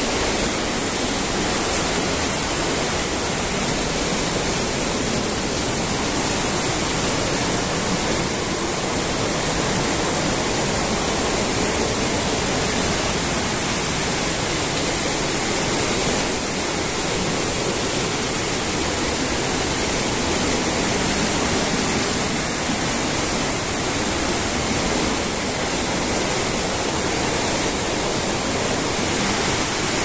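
Waterfall: falling water rushing in a steady, unchanging wash of noise.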